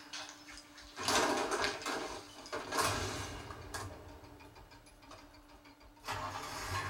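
Film sound effects played back through a Samsung HW-C451 soundbar and wireless subwoofer, picked up in the room: sudden loud noisy swells about a second in, near three seconds and again about six seconds in, over a low bass rumble.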